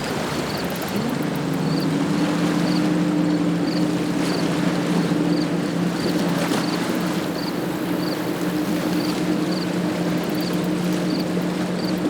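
Patrol boat engine running, rising in pitch about a second in and then holding a steady hum, over the rush of water and wind.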